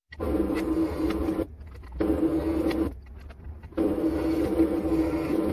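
Handheld power tool's electric motor running in three bursts: about a second and a half, under a second, then nearly two seconds. It gives a steady mid-pitched whine with a high hiss.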